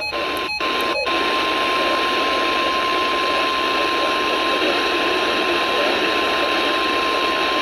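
NOAA Weather Radio's 1050 Hz warning alarm tone, one steady high beep over radio hiss, with two very brief dropouts about half a second and one second in. The tone signals that a warning is about to be broadcast, here a severe thunderstorm warning.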